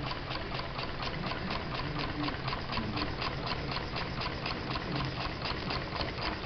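Small Elmer-design model steam engine running on live steam at about 14 psi, its exhaust chuffing in a steady, even rhythm of about five beats a second. A faint steady low hum sits underneath.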